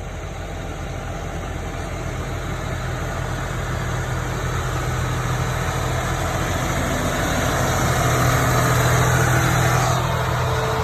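John Deere 8335R tractor's diesel engine running steadily as the tractor drives closer, growing louder until about eight or nine seconds in, then easing off slightly.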